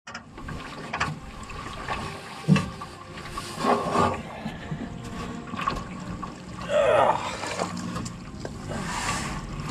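Water and mud sloshing and splashing around a canoe as a person wades and works at its side, with a few knocks on the hull. A short pitched sound that falls in pitch comes about two-thirds of the way through.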